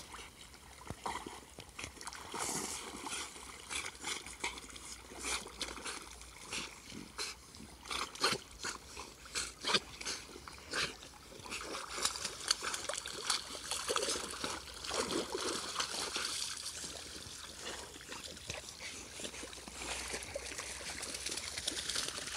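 Dogs swimming and paddling in shallow water, with irregular splashes and sloshing as they move through it.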